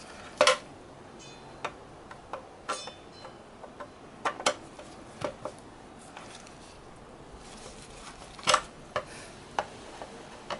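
Irregular clicks and knocks from the plastic case of an RCA DV1501 digital TV converter box being handled on a wooden bench. Near the end a screwdriver is pried into the case seam. The loudest knocks come about half a second in and about eight and a half seconds in.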